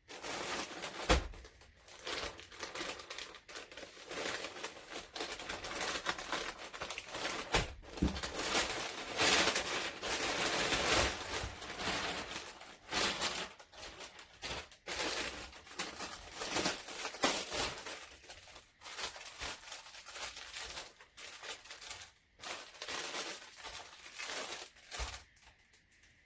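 A parcel being unboxed by hand: packaging rustling and crinkling, with some tearing and many scattered knocks and thumps. The sharpest knock comes about a second in.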